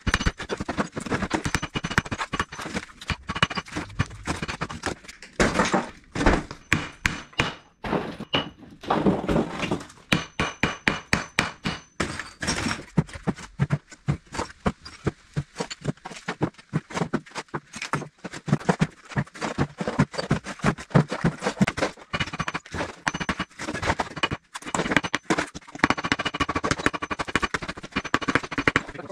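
Bricks being knocked loose from a low brick wall and tossed into a wheelbarrow: a long run of repeated sharp knocks, cracks and clatter of brick on brick.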